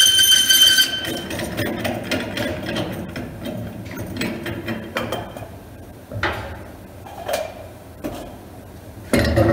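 Metal clattering and clunks from a wheel balancer as the quick-release hub nut is spun off the threaded shaft and the wheel and tire are lifted off. A high ringing tone sounds over the first second, there are a few separate knocks in the middle, and a heavy thump comes near the end.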